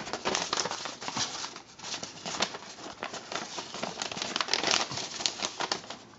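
Thin paper instruction sheet being unfolded and handled, a dense crinkling and rustling that dies down near the end.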